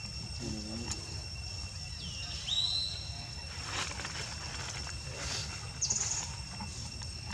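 A few high, thin animal calls: a squeal that slides up in pitch about two seconds in and holds, then a short, very high chirp around six seconds in, with brief rustling between them.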